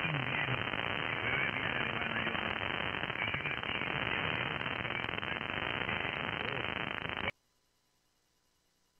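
Receiver audio from an SDR dongle running SDR Console on the 80-meter band in lower sideband with a 3.6 kHz-wide filter: a heavy, steady hiss of band noise and static with a weak voice barely showing through. About seven seconds in the audio cuts out abruptly to near silence.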